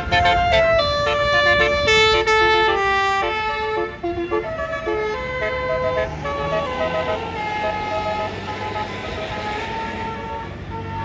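Bus 'basuri' telolet air horn playing a melody of quick stepped notes over a low rumble. The notes are loud for the first four seconds, then fainter notes carry on.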